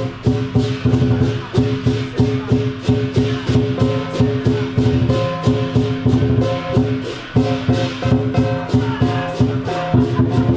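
Lion dance percussion ensemble of drum, cymbals and gong playing a fast, driving beat, with cymbal strikes about four to five times a second over a sustained ringing drone.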